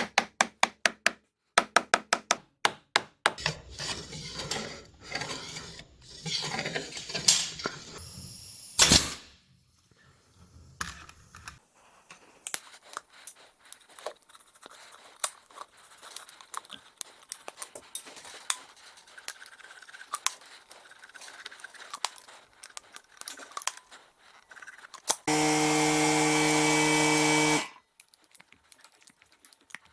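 Carpentry work: a quick run of evenly spaced, ringing tool strikes at the start, then scattered knocks and handling noise, and a power tool running steadily for about two seconds near the end.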